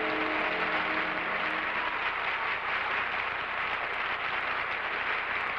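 Studio audience applauding steadily, with a few held notes of the theme music dying away about a second and a half in.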